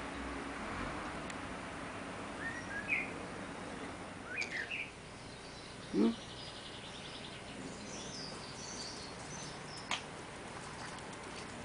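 Birds chirping in the background: short scattered chirps over a steady outdoor hiss, some higher-pitched ones in the second half. A brief, louder low sound about six seconds in, and a single click near the end.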